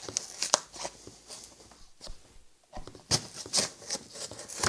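Glued-shut cardboard box being torn open by hand, giving a string of short crackles, rips and crunches with a brief lull in the middle.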